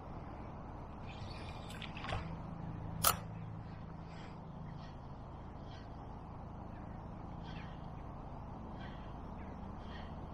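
Steady wind buffeting a head-mounted camera microphone, with a soft click about two seconds in and a sharp, louder click a second later.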